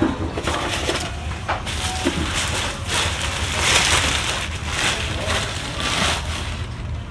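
Thin plastic packaging bag crinkling and rustling as it is handled, in several swells.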